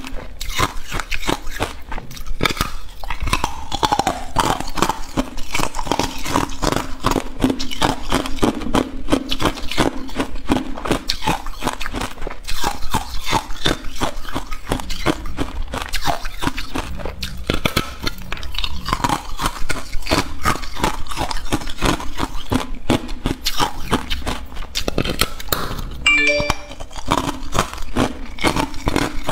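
Hard ice cubes being bitten and chewed close to a microphone: a continuous run of sharp crunching cracks.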